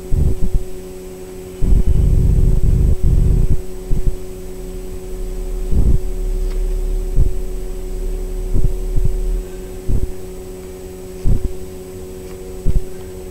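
Dull low thumps about every second or so, with two longer stretches of low rumble about two and six seconds in, over a steady hum.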